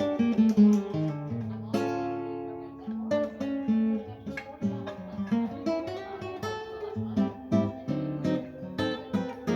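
Yamaha CG-TA nylon-string classical guitar played as a sound test: a run of plucked single notes and chords, each ringing on.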